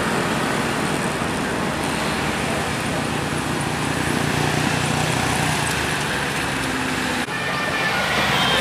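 Road traffic passing close by: steady engine and tyre noise from a tour bus, cars and motorbikes. About seven seconds in the sound cuts abruptly to another stretch of traffic with a few faint held tones.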